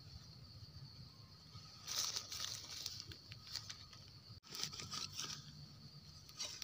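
Crackling and scraping of dry leaves and loose soil as a stick digs a wild mushroom out of the forest floor, in short rustling spells about two seconds in and again about a second after that.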